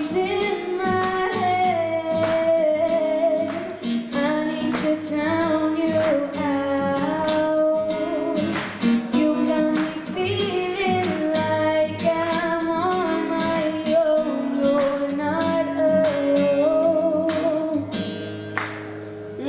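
Acoustic guitar strummed in a steady rhythm under a woman's sung melody: an acoustic band performing a song.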